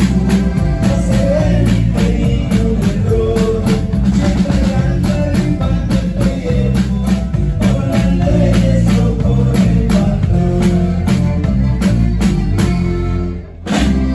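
Live band music: a drum kit keeping a steady beat under guitars and singing, loud from beside the drums. The music drops out briefly near the end, then the band comes back in.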